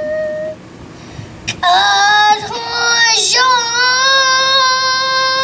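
A young girl singing solo into a microphone, without accompaniment. A held note ends about half a second in, and after a short breath a new phrase begins and settles into a long held note with a slight waver.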